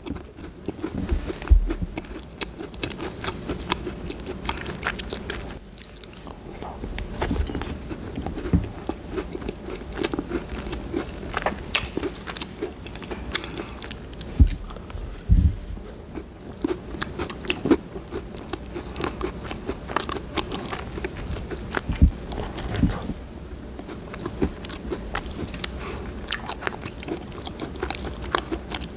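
Bites and chewing of a cookie: crunching bites with dense, irregular clicks and crackles of chewing, and a few stronger thuds along the way.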